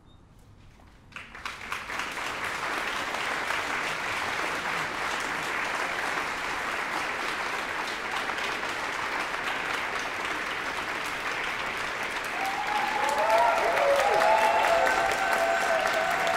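Audience applause that breaks out suddenly about a second in, after a hushed pause, and then goes on as steady clapping. Near the end a few voices cheer over it and the applause grows louder.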